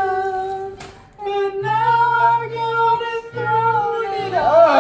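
Several voices singing along to a backing track, holding long notes, with a brief break about a second in.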